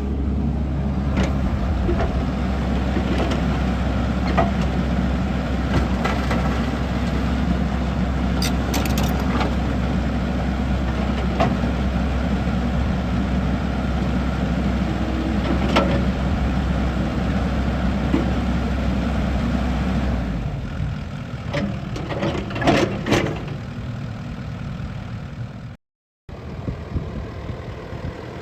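A Komatsu PC88MR-10 excavator's diesel engine runs steadily, with faint clicks now and then. About twenty seconds in the low drone drops away, a few knocks follow, and the sound cuts out briefly near the end.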